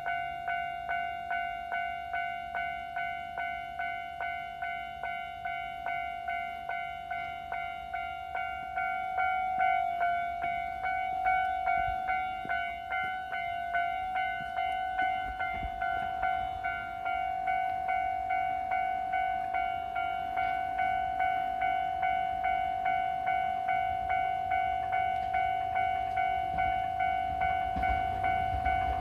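Japanese railway level-crossing alarm ringing a steady, evenly repeated electronic bell tone, about two strokes a second, warning of an approaching train. A low rumble of the train grows near the end.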